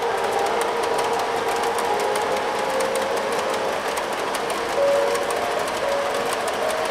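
Model train running steadily along the track, its wheels and cars rolling with a continuous rumble and a quick run of small clicks over the rail joints.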